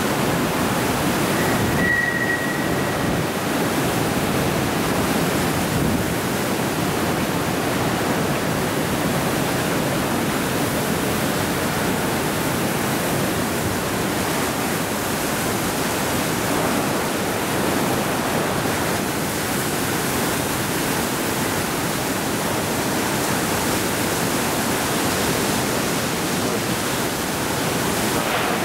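Severe tropical cyclone wind and driving rain rushing steadily through an open-sided concrete car park, a dense unbroken noise of wind and blown spray. A brief high whistle sounds about two seconds in.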